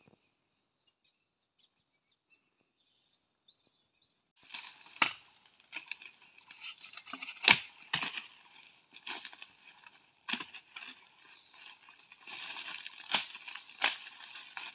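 Faint high chirping over near silence, then rustling and crackling of dry leaf litter and brush as someone moves through forest undergrowth, with about seven sharp snaps of breaking twigs and sticks, the loudest a little past the middle.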